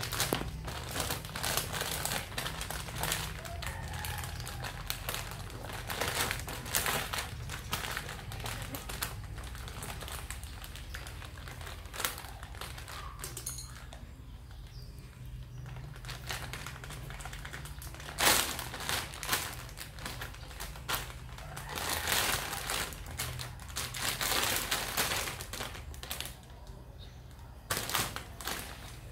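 Thin clear plastic bag crinkling and rustling on and off as kittens crawl inside it and paw at it, in irregular bursts.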